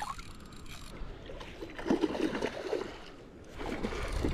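A hooked fish splashing and thrashing in shallow water as it is reeled in on a spinning reel, the splashes loudest about two seconds in.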